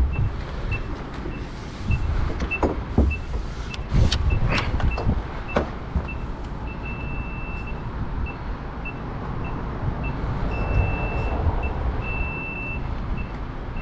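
High-voltage tester on a hot stick beeping: short high beeps about twice a second, broken by a few longer steady tones in the second half. Sharp clicks and knocks come between about two and six seconds in, with a low engine rumble underneath.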